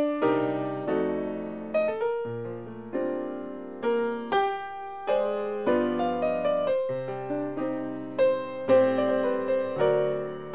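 Piano music: a gentle melody over chords, each note struck and left to ring down before the next.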